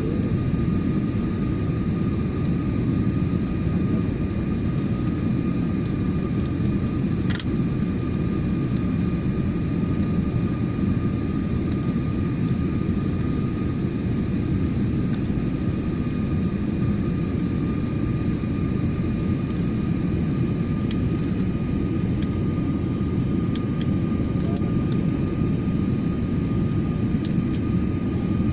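Passenger airliner in flight, heard from inside the cabin: a steady low rumble of engines and airflow, with a faint steady whine above it. A single sharp click comes about seven seconds in.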